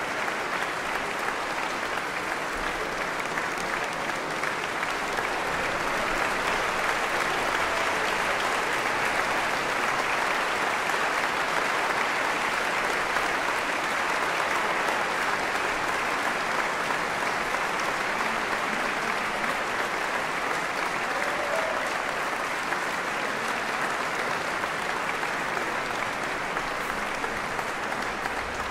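Concert audience applauding steadily, swelling a little several seconds in and easing off near the end.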